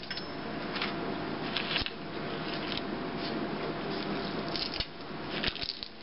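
Light clicks and rustles of plastic containers and the bird feeder's plastic cap being handled and set down, a handful of small knocks spread through, over a steady background hiss.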